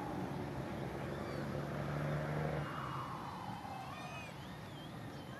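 A motor vehicle passes by, its sound sliding down in pitch from about three to five seconds in, after a steady low engine hum that fades near the middle. Faint short high chirps sound above it.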